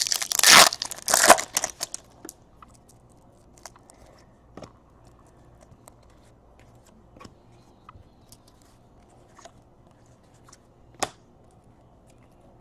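A trading-card pack's foil wrapper being torn open and crinkled for about the first two seconds, then faint scattered ticks and rustles of cards being handled, with one sharper click about eleven seconds in.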